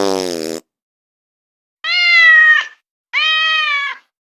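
A domestic cat meowing twice, two short calls of steady pitch about a second apart, after a brief lower cry that falls in pitch right at the start.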